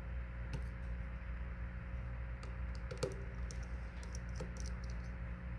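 Light, scattered clicks and ticks of a small precision screwdriver and tiny screws against an iPhone 6s's internal parts and metal shield plates, over a steady low electrical hum.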